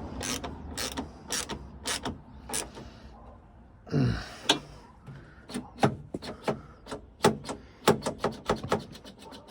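Hand ratchet clicking in short strokes as a bolt on the truck's door-latch assembly is tightened, with one louder scrape about four seconds in.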